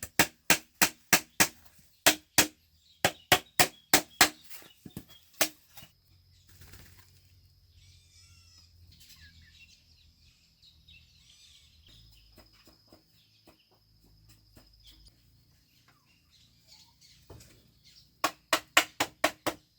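Rapid sharp strikes of a tool on bamboo, about three a second, stopping about five and a half seconds in and starting again near the end. Birds chirp faintly in the pause between.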